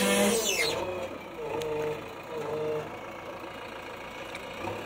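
JCB 3DX backhoe loader's diesel engine running, with a falling tone in the first half-second and then short, repeated surges in its note.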